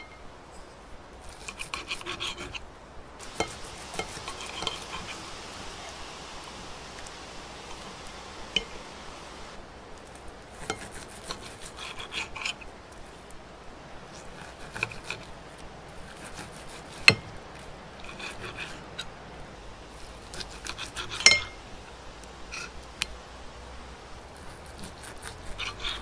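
Knife and fork cutting a cooked steak: repeated bouts of the blade sawing through the meat and scraping the surface beneath, with the fork's tines clinking. There are two sharp, loud clinks, one about two-thirds of the way through and one a few seconds later.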